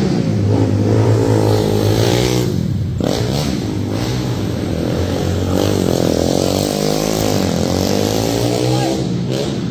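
Racing quad's engine revving up and easing off as it laps a dirt oval, its pitch rising and falling again and again, with a marked drop about two and a half seconds in.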